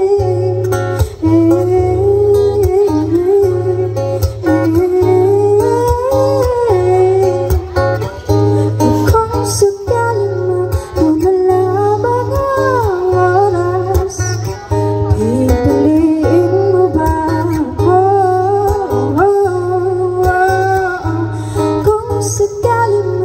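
A woman singing into a microphone while strumming an acoustic guitar, amplified through a PA system; the melody glides up and down in long held notes.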